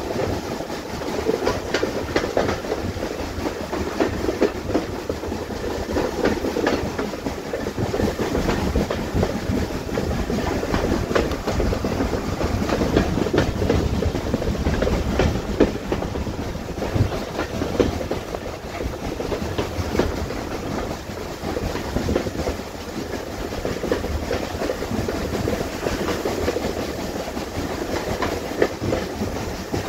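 Steam-hauled train running along the line, heard from an open coach window: a steady rumble with the wheels clattering irregularly over the rail joints.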